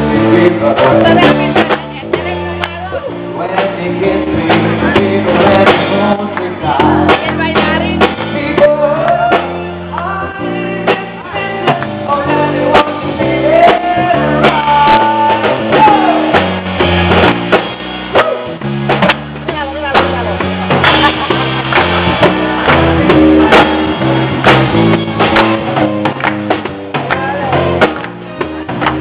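Live band playing a song, with keyboard and guitar over a steady beat.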